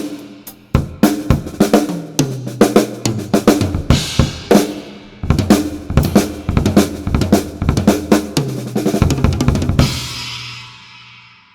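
Acoustic drum kit played through a Yamaha EAD10 drum microphone with its reverb turned up: fast bass drum, snare and hi-hat groove with tom fills, ending in a final cymbal crash near the end that rings out and fades.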